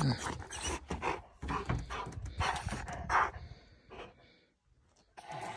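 A mixed-breed dog panting in quick, uneven breaths that fade out about four seconds in.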